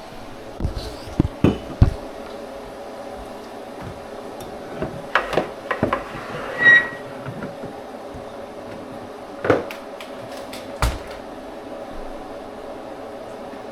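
Scattered knocks and clatter of objects being handled and set down, with one short high beep about seven seconds in.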